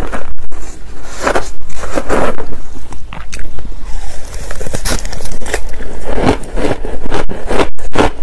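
Close-miked crunching of crushed ice topped with passion fruit pulp, chewed in quick repeated clusters of bites, with a metal spoon scraping through the ice in a plastic bowl.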